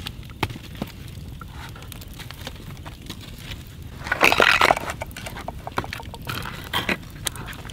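Wood fire crackling in a stone hearth, with scattered sharp pops throughout and a louder noisy burst lasting under a second about four seconds in.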